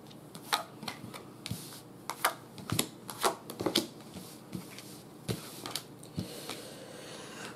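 Tarot cards being drawn from a deck and laid down one by one on a cloth-covered table: a series of light, irregular card snaps and flicks.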